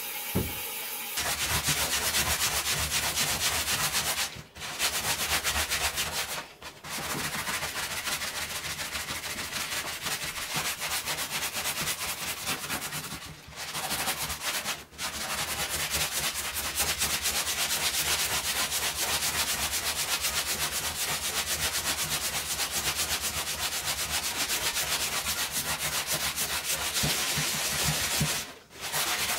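Rapid back-and-forth scrubbing of a bathtub floor with a gloved hand and pad, a dense scratchy rubbing that stops briefly a few times.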